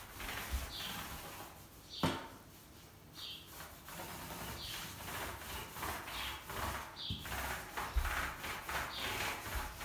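A brush stroking a clear protective wood finish onto bare sanded floorboards: soft rubbing swishes every second or so, with a couple of light knocks on the floor.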